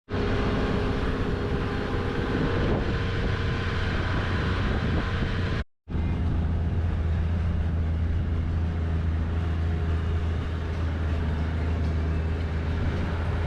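Four-wheel-drive vehicle engine running with a steady low drone, broken by a brief gap about six seconds in.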